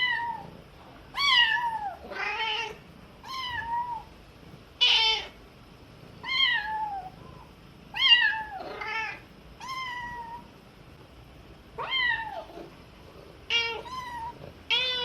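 Kitten meowing over and over: about a dozen short, high-pitched meows, roughly one a second.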